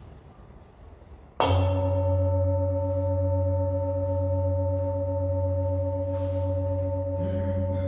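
A singing bowl struck once about a second and a half in, then ringing on steadily with a deep hum and several higher overtones, marking the start of a time of silent prayer.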